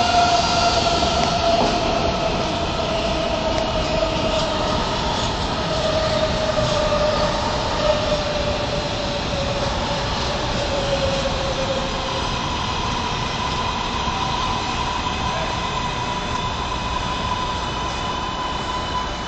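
MARTA rapid-transit train pulling into the station and slowing to a stop, wheels rumbling on the rails. A whine falls steadily in pitch as the train slows. A steady higher tone takes over for the last several seconds as it stops.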